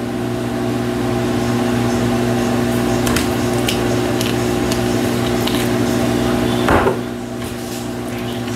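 Steady hum of a kitchen appliance motor, with light clicks and knocks of kitchen work; the hum cuts out about seven seconds in with a short falling whine.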